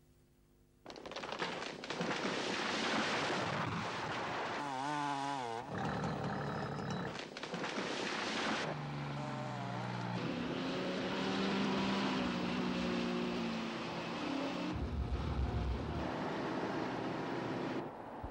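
Heavy diesel machinery running: a loud, continuous mechanical din with engine drone and changing tones, starting about a second in after a brief quiet moment.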